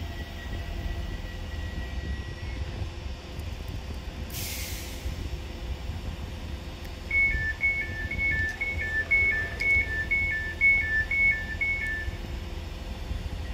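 Class 345 electric train standing at a platform with a low hum and rumble. A short hiss comes a little over four seconds in. About seven seconds in, the door-closing warning sounds for about five seconds: a fast two-tone beeping alternating high and low, the signal that the doors are about to close.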